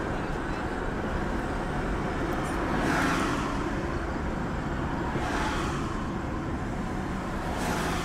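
Steady road and engine noise heard from inside a moving car, with three whooshes of passing vehicles: one a few seconds in, one past the middle and one near the end.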